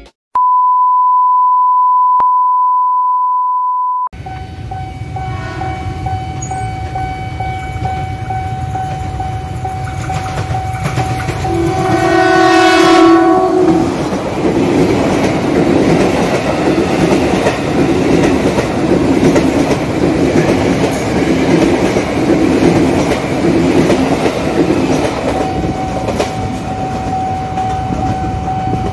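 A steady electronic beep lasting about four seconds, then the steady warning tone of a railway level crossing. A Tokyo Metro 6000 series electric commuter train sounds its horn about twelve seconds in and runs past with its wheels clattering over the rail joints. The crossing's warning tone is heard again near the end.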